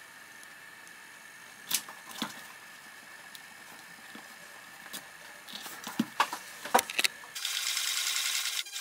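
A few sharp clicks and taps as the leather boot and its small spring clamps are handled, coming thicker about six seconds in. Then, about seven seconds in, a sewing machine starts running fast and steady, stitching the elastic side gusset into the boot's leather upper.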